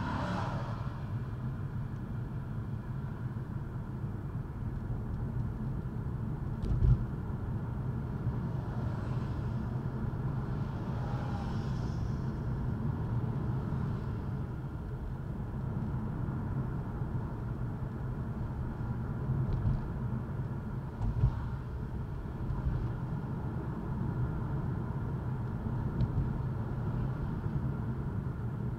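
Steady rumble of road traffic: car engine and tyre noise, with a brief thump about seven seconds in and another about twenty-one seconds in.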